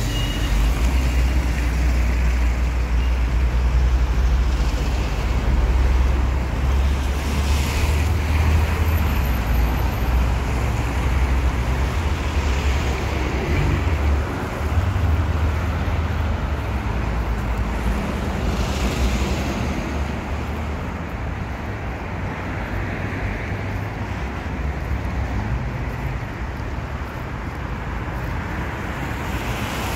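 Road traffic on a city street, cars passing by, with a heavy low rumble through the first half that eases about halfway through.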